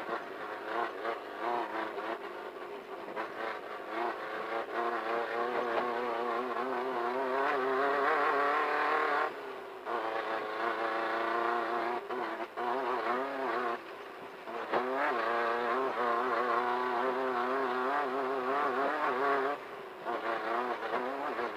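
Off-road race car engine revving hard, its pitch wavering unsteadily. The engine note drops out briefly three times, about nine and a half, fourteen and twenty seconds in, then picks up again.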